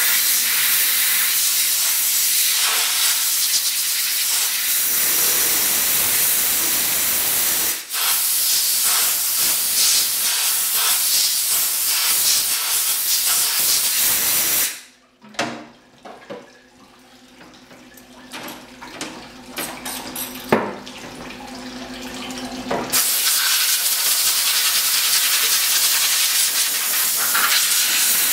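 Compressed-air blow gun hissing as it blasts aluminium chips off a freshly machined part and vise, in long blasts with a brief break about eight seconds in. It goes quieter for several seconds mid-way with small clicks and rattles, then the blasting starts again.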